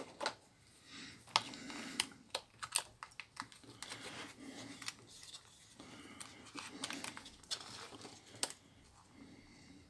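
Sharp plastic clicks and taps from handling a feature phone, as its battery cover is fitted and snapped back on.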